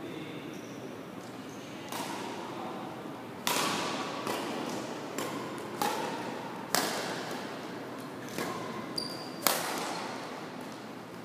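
Badminton rackets striking a shuttlecock in a rally, a series of sharp irregular cracks, about nine, that echo around a large sports hall. A few short high squeaks from shoes on the court floor come between the hits.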